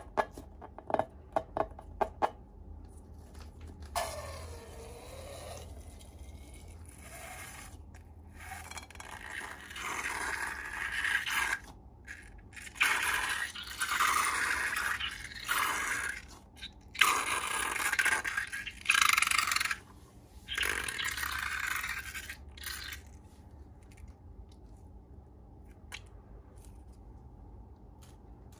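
Scraping and rubbing in repeated bursts of a second or two each, after a few quick clicks at the start.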